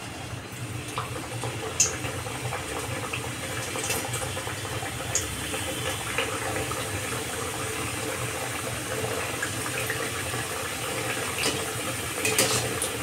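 Chandrakala samosas deep-frying in medium-hot refined oil in an iron kadhai: a steady bubbling sizzle, with a few light clicks scattered through it.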